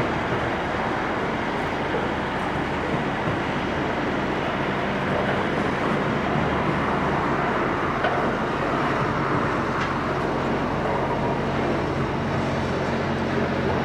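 Container wagons of a long freight train rolling past: a steady rumble of steel wheels on the rails, with a few faint clicks.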